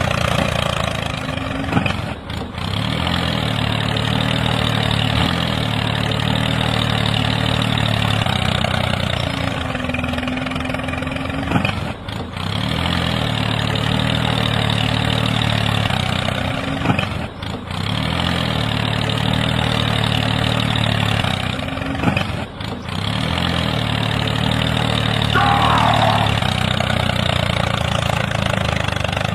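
A toy tractor's small motor-driven rotary tiller running steadily and churning dry soil, a low even motor hum with a rough grinding layer over it. The sound drops out briefly four times.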